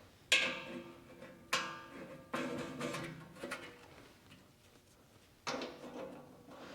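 Four sharp metal clanks, each ringing briefly. The first three come about a second apart and the last follows after a longer gap. They come from metal parts of a mini metal lathe being handled as its cover is refitted.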